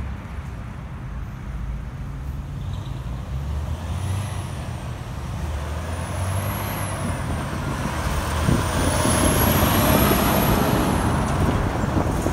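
Heavy truck's diesel engine running as it comes through the intersection and passes close by, with car traffic. It gets louder in the second half.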